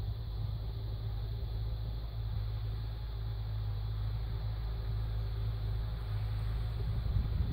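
Farm tractor's diesel engine running steadily under load, heard as a low, even drone at a distance.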